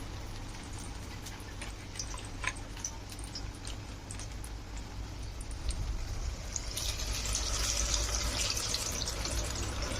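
Coated chicken frying in hot oil: a light crackle with scattered pops, then a louder, hissing sizzle from about seven seconds in as more pieces go into the oil.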